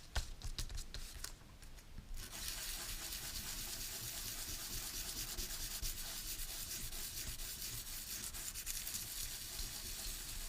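Metal ball-differential plate being rubbed on sandpaper: a steady scratchy hiss that sets in about two seconds in, after a few light clicks of handling. The plate's chrome plating is being sanded off to make it smooth.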